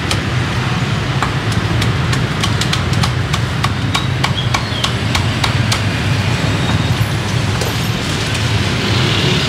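Cleaver chopping crispy roast pork: a run of sharp knocks about three a second, thinning out after about six seconds, over a steady low rumble of street traffic.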